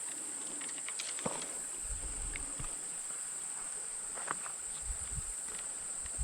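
Crickets chirring in a steady, high-pitched drone, with a few faint clicks and soft handling noises.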